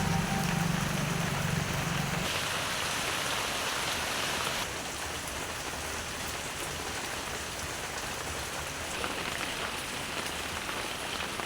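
Pomfret frying in hot oil: a steady, even sizzle, with a low hum in the first two seconds.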